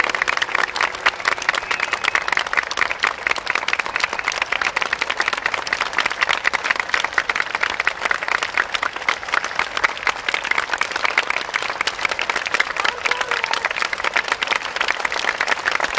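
Large stadium audience applauding and cheering steadily, a dense wash of many hands clapping, as a song ends.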